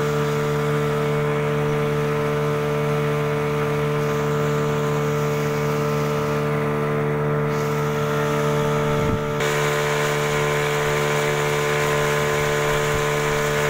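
A small river boat's outboard motor running steadily at cruising speed, a constant engine drone with a brief dip about nine seconds in.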